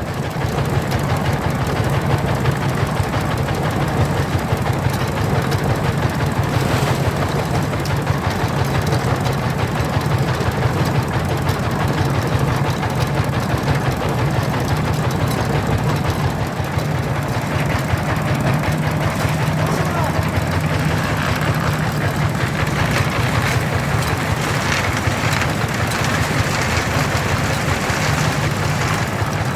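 Engine-driven concrete-pouring machinery running steadily at an even pitch, with a constant low drone.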